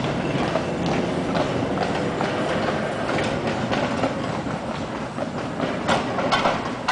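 Vintage single-deck electric tram running on its track, steel wheels clattering and clicking over the rails, easing off slightly as it pulls away; a few sharper clicks near the end.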